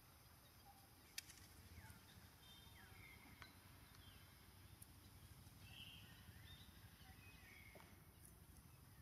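Near silence: faint outdoor ambience with a few short, high chirps scattered through it and a single sharp click about a second in.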